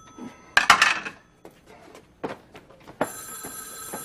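A telephone ringing, one ring starting about three seconds in, as a set of steady high tones. A loud clatter about half a second in, the loudest sound here, and a single knock near the middle.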